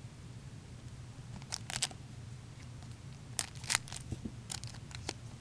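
Hockey trading cards being handled and shuffled through a stack: a few sharp card clicks and snaps, two short clusters of them with single ones near the end, over a low steady hum.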